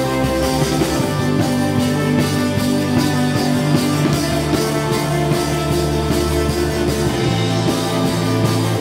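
Rock band playing an instrumental passage with no singing: guitar chords held over a steady drum-kit beat.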